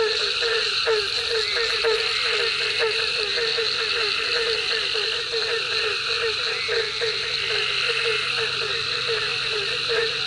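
Night chorus of pond frogs: a low croaking note repeated about four times a second, over a steady high-pitched trilling hum from the rest of the chorus.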